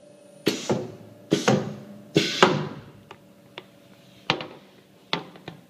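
A string of sharp clacks and knocks of hard objects, irregular and closely spaced in the first few seconds, then sparser, over a faint steady hum.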